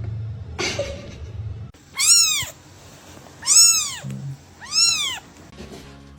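A cat meowing three times, about a second and a half apart, each meow rising and then falling in pitch.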